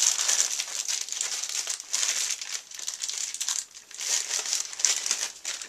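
Clear plastic bag crinkling and rustling as a microphone is pulled out of it by hand, a continuous crackle with a few short lulls.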